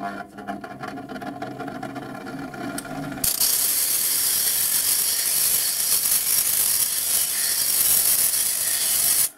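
Bench grinder motor starting up and running with a steady hum. About three seconds in, the end of a steel twist drill bit is pressed against the emery wheel, giving a louder, high grinding hiss of metal on the abrasive stone that cuts off suddenly near the end.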